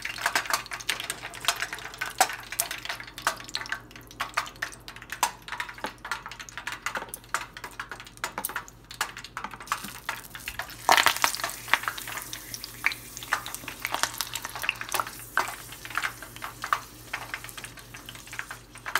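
Basil leaves deep-frying in a small pot of hot oil: a continuous crackling sizzle full of sharp pops, with metal tongs clicking against the pot. About eleven seconds in, a fresh leaf goes into the oil and the sizzle flares up loudly.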